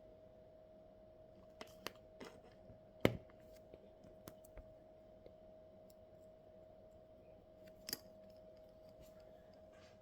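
Scattered small clicks and taps of parts and tools being handled at a workbench, with one sharper knock about three seconds in, over a faint steady hum.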